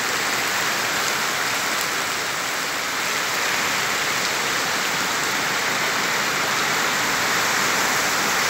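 Heavy rain pouring down onto a flooded street, a steady hiss.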